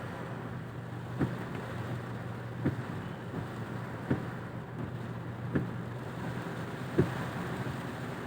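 Inside a car in heavy rain: the windscreen wipers thump at the end of each sweep, about every second and a half. Under them runs a steady low engine hum and the hiss of rain.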